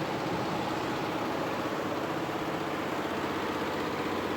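Multi-head computerized embroidery machine stitching at speed: a rapid, steady mechanical clatter of needle strokes.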